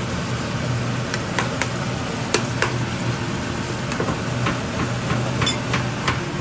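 Beef chunks sizzling in an oiled frying pan, with a metal spoon clicking and scraping against the pan about ten times at irregular intervals as the meat is stirred, over a steady low hum.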